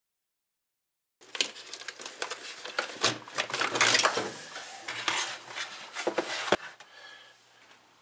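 Rigid plastic evaporator cover of a frost-free refrigerator's freezer being worked loose and pulled out: clattering knocks, rattles and scrapes of the plastic panel. They start about a second in, are loudest in the middle, and end with a sharp knock.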